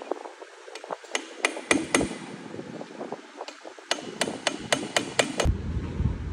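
A hammer striking metal about a dozen times with a ringing clank: a run of five blows, a pause, then a quicker run of about seven, as parts are knocked loose during a wheel bearing replacement. A low rumble follows near the end.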